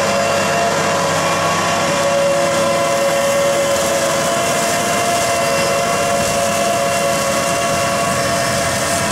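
Tractor engine running steadily under load, driving a Bomford Hawk Evo Forward arm mower whose hydraulically powered flail head is spinning in the grass; an even, unbroken machine sound at a constant pitch.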